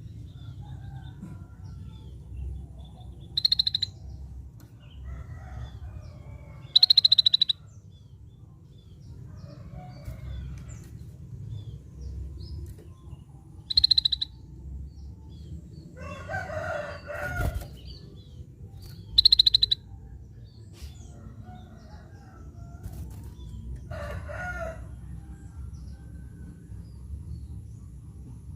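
Scaly-breasted bulbul calling: four short, high, rapidly pulsed rattling calls at intervals of several seconds, over a steady low hum.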